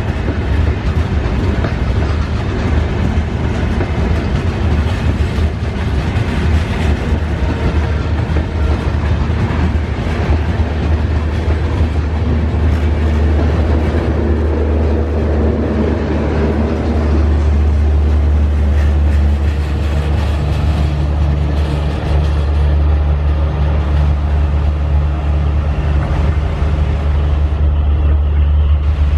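LHB passenger coaches of an express train rolling past on the rails, a continuous rumble of wheels on track that grows deeper and louder in the second half.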